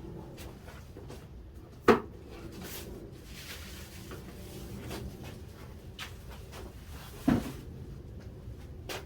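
Two sharp knocks, one about two seconds in and another about five seconds later, with soft rustling and a lighter click in between, like objects being handled and set down on a hard surface.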